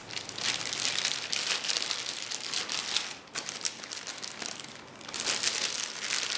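Packaging crinkling and rustling as it is handled, with a brief pause about three seconds in.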